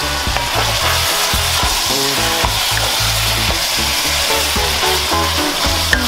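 Saltfish and vegetables sizzling as they sauté in a pot, stirred with a wooden spoon. Background music with a steady bass beat plays underneath.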